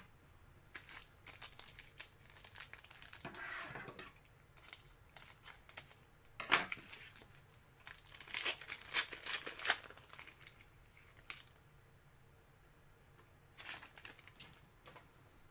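Trading-card packs and cards being handled: crinkling wrappers and rustling, with a few sharp clicks, in short separate bursts.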